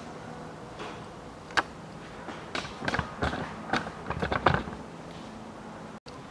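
Irregular light clicks and knocks of hard objects being handled while engine oil is being filled. Single knocks come about one and a half and two and a half seconds in, then a denser cluster of clicks a little past the middle, over a faint steady hum.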